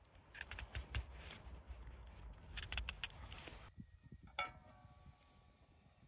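Small knife working an onion, with crackly scraping of the dry skin under the blade. After a brief pause, about two-thirds of the way through, a single metal clink rings on for a moment.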